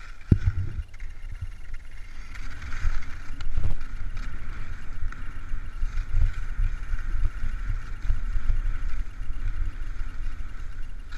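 HEAD alpine skis sliding and scraping over tracked snow, a steady hiss, with wind buffeting the microphone as a low rumble. A sharp knock about a third of a second in.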